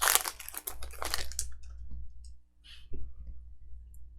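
Foil wrapper of a trading-card pack crinkling as it is torn open, for about the first second and a half. A few light clicks follow as the cards are handled.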